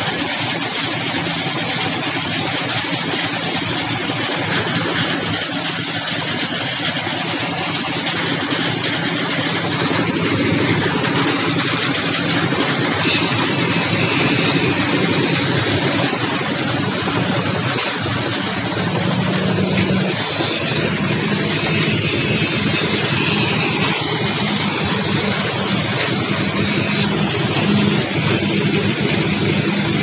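Engine running steadily under heavy, noisy site sound, getting a little louder about a third of the way in and again past the middle.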